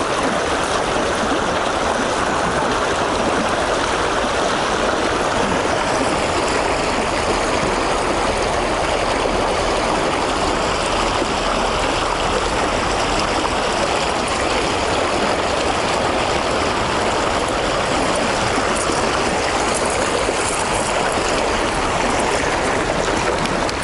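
Steady rushing of river current flowing below a lock and dam, an even, unbroken water noise.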